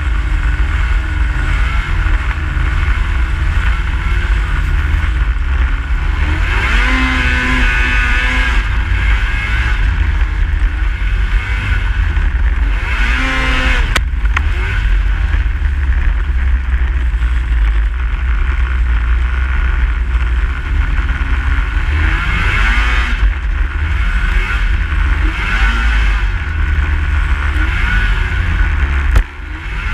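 Snowmobile engine running under way, its pitch rising and falling as the throttle changes, over a heavy low rumble. There is a sharp click about halfway through and a brief drop in sound near the end.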